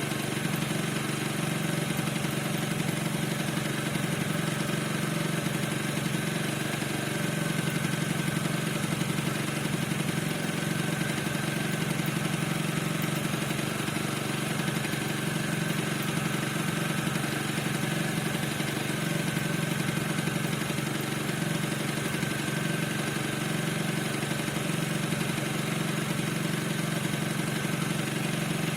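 Piaggio NRG 50 scooter's two-stroke engine idling steadily, with a thin, steady high squeak over it whose cause the owner has not found.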